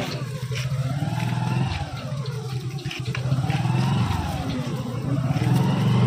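A motor vehicle's engine running at low speed, its pitch rising and falling twice as it speeds up and eases off.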